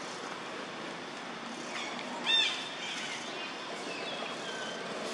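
A few short, high chirping calls over steady outdoor background noise; the loudest and clearest comes about two seconds in.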